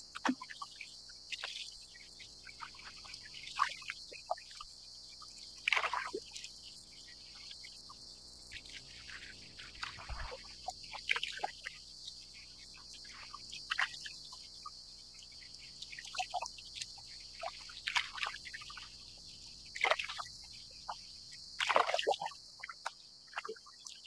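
Steady high-pitched cicada chorus, with water lapping and splashing against the plastic kayak's hull every second or two.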